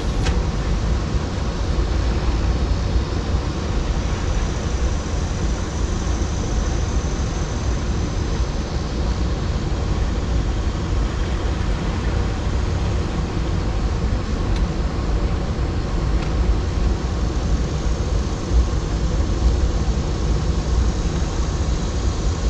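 Steady low rushing roar of river water discharging below a dam, unbroken, with no distinct events.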